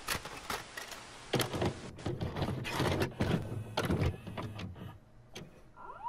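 A VCR taking in and loading a videocassette: a run of irregular clicks and clunks with motor whirring. Near the end comes a short rising whine as playback starts.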